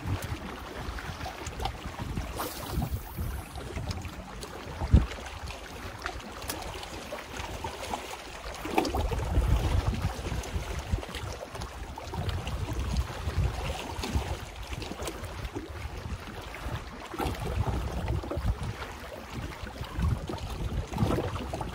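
Wind gusting on the microphone, a low rumble that swells and fades, over small waves lapping at a rocky shore. A single sharp knock about five seconds in.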